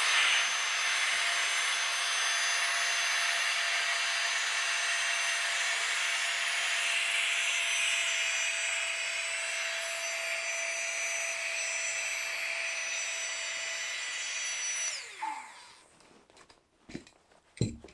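Flextail battery-powered mini air pump running with a steady high whine as it inflates a camping pillow. About fifteen seconds in it switches off and winds down with a falling pitch, followed by a couple of light clicks as it is taken off the valve.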